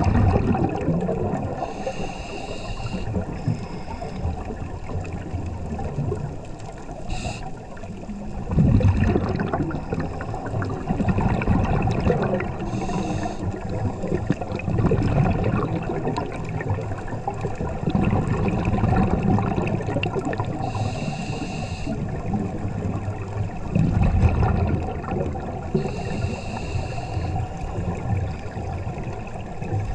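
Underwater scuba breathing: a diver's regulator hisses briefly on each inhalation every few seconds, between stretches of low, gurgling exhaled bubbles.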